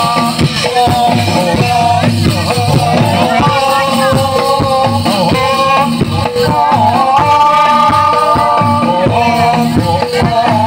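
Loud live Javanese jaranan ensemble music: busy drumming under a wavering, held melody line.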